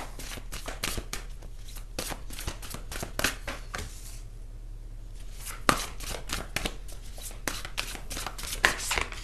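Irregular light clicks and taps, with a quieter gap of about a second and a half near the middle.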